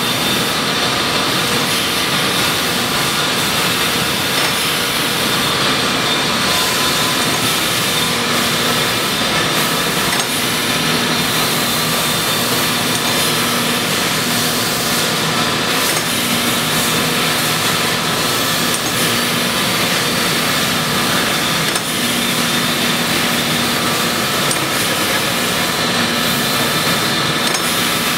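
Large Mattison surface grinder running: a steady, loud machine noise with a constant high whine from the spinning wheel, and a lower hum that comes and goes every few seconds.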